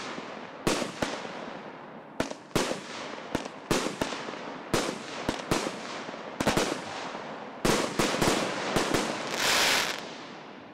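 A consumer fireworks cake ('Vanilla Sky', SP026049) firing shot after shot: sharp bangs at an uneven pace of roughly two a second, each trailing off in echo. Near the end comes about a second of hissing, then it fades out.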